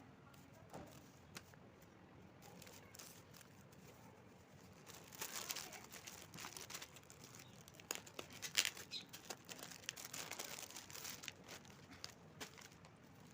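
Plastic packaging crinkling and rustling as it is handled and opened, with sharp crackles. It is faint at first, grows louder about five seconds in with the loudest crackle near the middle, and dies away near the end.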